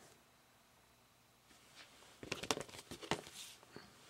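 Cardboard LP record jackets being handled: quiet for the first half, then a quick run of sharp rustles and taps from about halfway through, the loudest a little after the middle.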